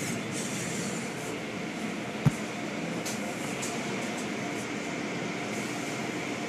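Automatic car wash heard from inside the car: a steady rush of water spray and machinery as the cloth brushes work over the car, with brief hissing spurts. About two seconds in there is a single sharp thump.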